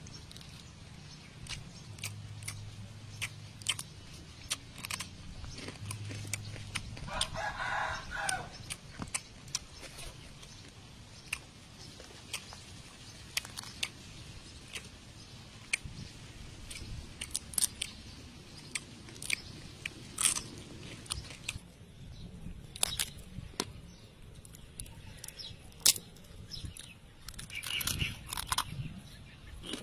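Fried crab shells crunching and cracking as they are pulled apart by hand and chewed: a string of sharp, irregular cracks and clicks. About seven seconds in, a chicken calls once.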